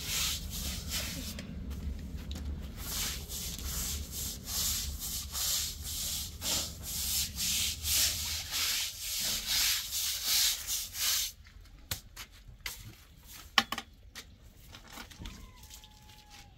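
Rhythmic rubbing strokes, about two a second, that stop about eleven seconds in, followed by a few scattered knocks.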